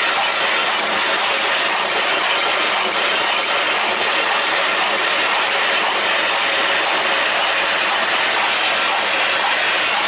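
Positive-and-negative twist barbed wire machine running: a steady, dense metallic clatter from its barb-wrapping and twisting mechanism.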